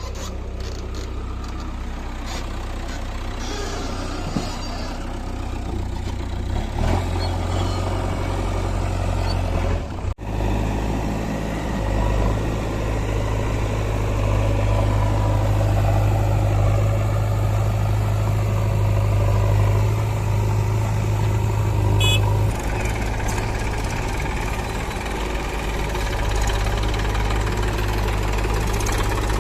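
Heavy diesel machinery engine running steadily under work. The sound drops out briefly about ten seconds in and its note shifts a little past twenty seconds.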